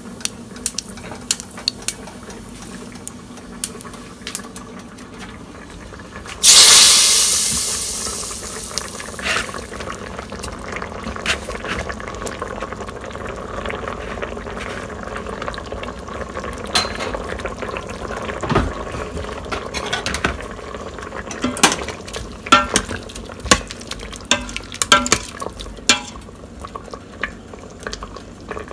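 Hot oil tempering spluttering and popping in a small stainless steel pan, then a sudden loud sizzle about six seconds in that fades over a few seconds as the tempering meets the sambhar. A metal ladle then stirs the sambhar in the Instant Pot's steel inner pot, clinking against it near the end.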